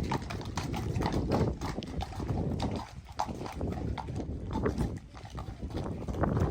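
Friesian horses' hooves stepping, a run of irregular clip-clopping knocks.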